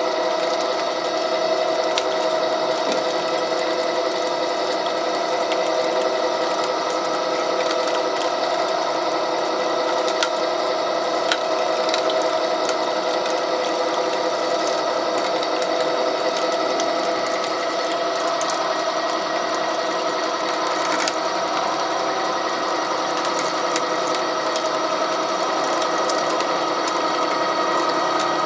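REX 6590 gear-driven pipe threading machine running steadily while its die head cuts a thread on the pipe: an even gear whine of several steady tones, with faint scattered clicks.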